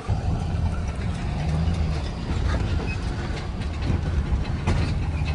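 Pickup truck engine running with a steady low rumble, heard from inside the cab while towing a boat trailer, with a few light clicks and rattles.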